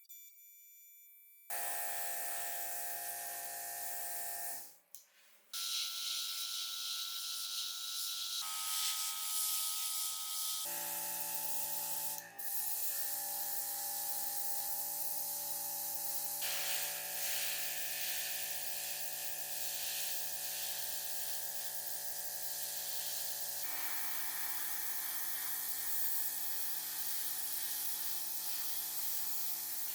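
A small electric motor running steadily with a strong hiss over it, its pitch shifting at several abrupt cuts.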